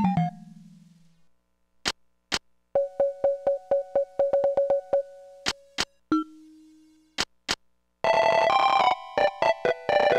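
Casio SA-10 mini keyboard played in short test phrases. A falling run ends on a low note, then one note is repeated rapidly for about two seconds, then a lower note is held. From about eight seconds in comes a dense, busier passage of chords. Pairs of short clicks fall between the phrases.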